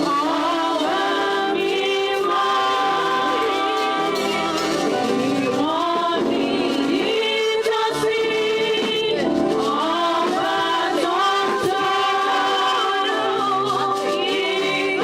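Music: a choir singing with accompaniment, over a steady held note.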